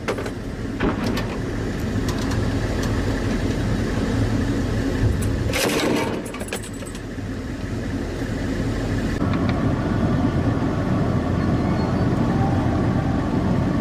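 A military vehicle's engine runs steadily under the gun turret, with a low rumble throughout. A few sharp knocks or bangs cut through it, the loudest a short burst about six seconds in.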